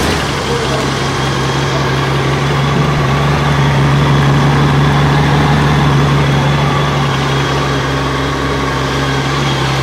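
Honda GL1800 Gold Wing's flat-six engine idling steadily.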